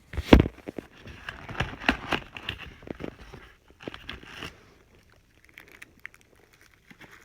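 Hose connector pieces being handled and packed back into their box: a sharp knock about a third of a second in, then a run of clicks and rattles, growing sparse after about four and a half seconds.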